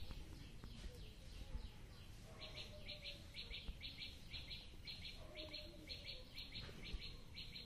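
A bird chirping in a fast, even series of doubled high chirps, about two a second, which pauses briefly and starts again a couple of seconds in.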